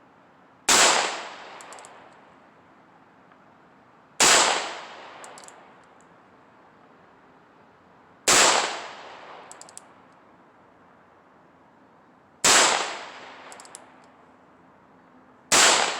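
Heritage Rough Rider single-action revolver firing .22 Magnum rounds: five sharp shots, one every three to four seconds, each ringing out briefly. Light clicks follow each shot.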